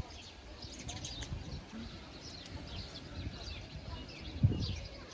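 Small birds chirping, many short high calls scattered throughout, over a low rumble; a single thump about four and a half seconds in.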